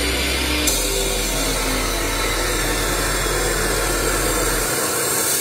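Classic CLA-357 2000 W metal chop saw with a 355 mm abrasive cut-off disc, cutting steel stock in a straight cut, a steady grinding noise throughout.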